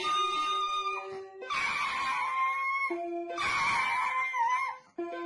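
A small dog pressing the keys of a toy electronic keyboard, sounding short held notes, and howling along twice in long, wavering howls.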